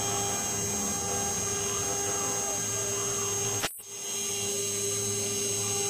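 Small CNC router spindle running at steady speed with a high whine, its engraving bit cutting into a brass disc. The sound cuts out for a moment a little past halfway, then carries on.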